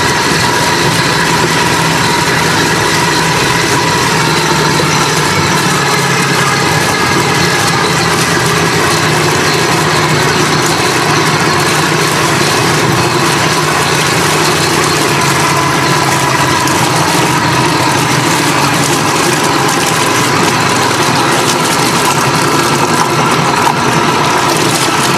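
Propeller of a homemade electric outboard, a 24–48 V permanent-magnet DC motor driving an old Suzuki outboard's lower unit, running at about half throttle and churning water in a test barrel: a steady, loud frothing splash with the motor and gears' even whine running through it.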